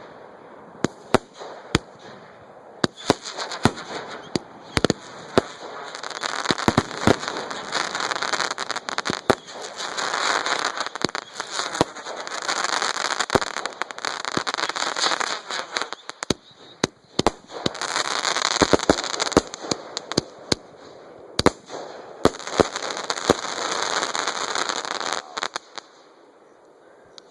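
Fireworks display at close range: repeated sharp bangs with several long swells of dense crackling.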